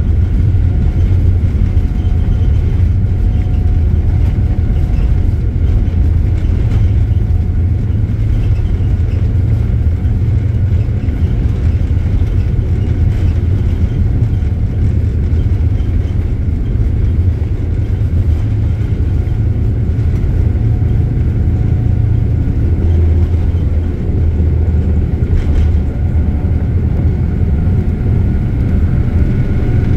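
Airliner cabin noise during the takeoff roll: a steady, loud low rumble from the engines at takeoff power, with a faint steady whine above it.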